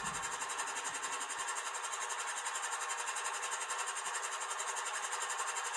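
Sound decoder in an HO scale GE AC44C6M model locomotive playing its diesel prime mover at idle through the model's small speaker: a steady, buzzy drone with a slight regular throb.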